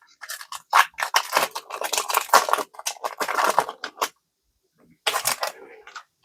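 Foil booster pack wrapper crinkling and being torn open: a dense run of crackles lasting about four seconds, then after a short pause a brief burst of rustling.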